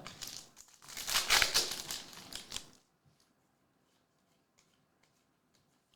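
Crinkling rustle of football trading cards and their foil pack being handled, lasting about three seconds and stopping abruptly.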